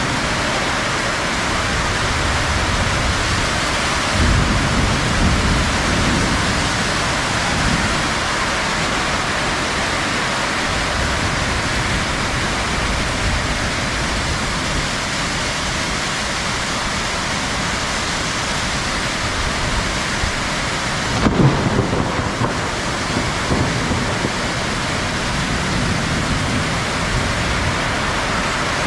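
Heavy rain falling steadily in a thunderstorm, with low rumbles of thunder about four seconds in and a louder one about twenty-one seconds in.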